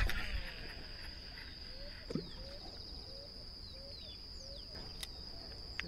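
Steady high-pitched insect drone with birds calling in short downward-sliding chirps. A sharp knock comes right at the start, with a couple of fainter clicks later.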